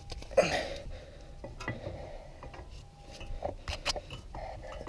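Scattered metallic clicks and clinks of a brake caliper being handled and fitted back over new pads onto the carrier, with a short louder noise about half a second in.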